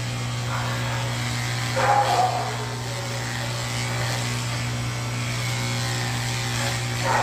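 Electric pet clippers running with a steady hum while shaving a cat's heavily matted coat. Two short animal calls cut in, about two seconds in and again at the very end.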